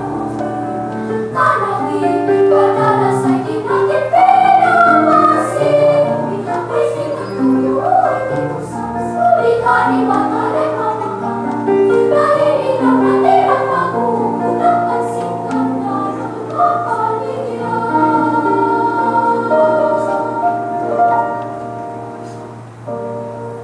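Children's choir singing in several parts, voices holding and moving between sustained notes, over a steady low hum. The singing softens near the end.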